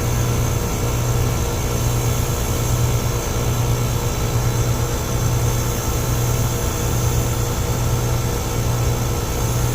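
3-ton Trane gas pack air conditioner running: a steady compressor hum under the rush of the condenser fan.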